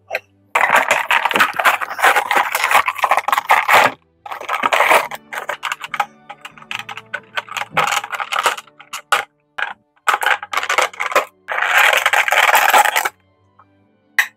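A toy's plastic and cardboard packaging being handled and opened: rustling and crinkling in three long loud stretches, with short clicks and scrapes between them.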